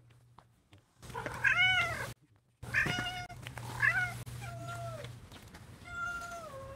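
Ginger tabby cat meowing at close range, about five meows. The first arches up and down, and the later ones are drawn out and fall in pitch, the last being the longest.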